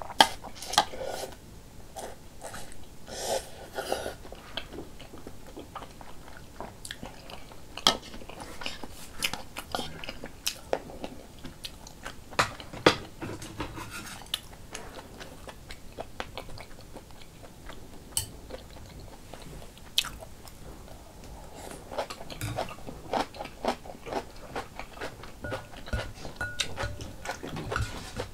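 Eating sounds from a person eating rice cake soup: chewing and slurping with wet mouth noises, and now and then sharp clicks of a metal spoon and chopsticks against a glass bowl.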